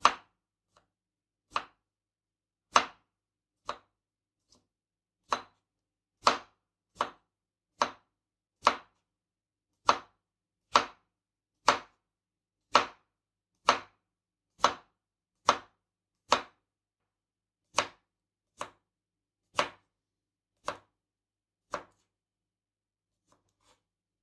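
Kitchen knife slicing a green vegetable into rounds on a bamboo cutting board: sharp, separate knocks of the blade on the board, about one a second, stopping shortly before the end.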